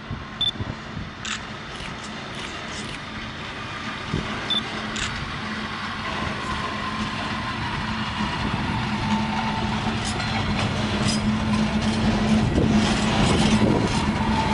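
Electric locomotive hauling a freight train of open wagons, approaching and passing, growing steadily louder: a steady hum from the locomotive and the rumble of wheels on the rails.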